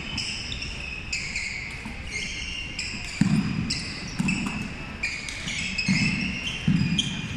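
Court shoes squeaking on a wooden sports-hall floor: a run of short, high squeaks, with dull thuds of footsteps from about three seconds in.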